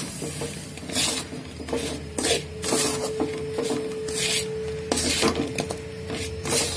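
A spatula stirring and scraping fried banana pieces through thick jaggery syrup around an aluminium kadai, in repeated scraping strokes roughly once a second over a steady hum.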